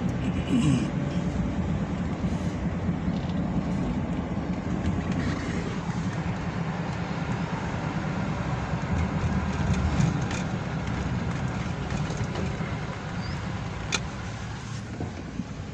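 Car driving, heard from inside the cabin: a steady low engine and road rumble. A single sharp click comes near the end.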